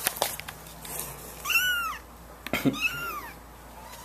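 A young kitten meowing twice, about a second apart. Each meow is a high call that rises and then falls.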